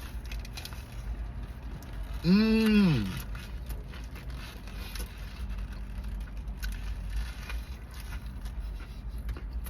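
Chewing and mouth sounds of someone eating a burger, with one short hummed "mmm" that rises and falls in pitch a little over two seconds in, over a steady low rumble.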